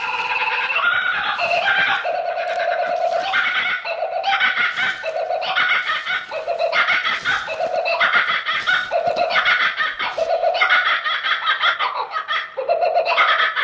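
Kookaburra calling: a loud, repeated cackling call that sounds like loud human laughter, its phrases coming in quick succession throughout.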